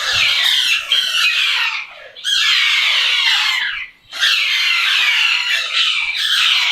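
Parrots squawking loudly, a dense run of harsh screeching calls in three long stretches with short breaks about two and four seconds in.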